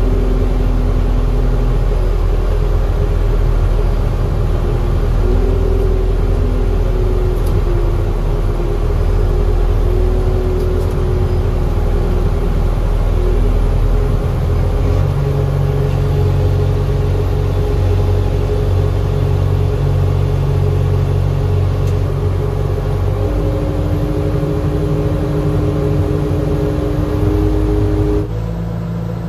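Towbarless aircraft tractor's engine running under load, pushing a Boeing 737-8 held by its nose gear, heard from inside the tractor's cab. A steady rumble with a held engine note that steps in pitch a few times and shifts about halfway through. The sound drops in level suddenly near the end.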